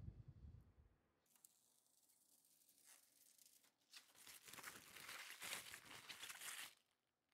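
A soft low thump, then faint rustling and crinkling that grows louder for a few seconds and cuts off abruptly near the end.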